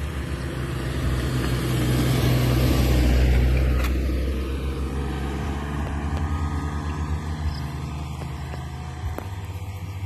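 A small van driving up a narrow concrete road and passing close by. Its engine and tyre noise swells to a peak about three seconds in, then drops in pitch and fades as it goes away.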